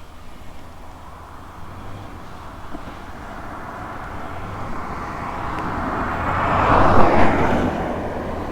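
BMW F 750 GS parallel-twin motorcycle pulling away hard from a stop, engine and wind noise building to a peak about seven seconds in, then easing off.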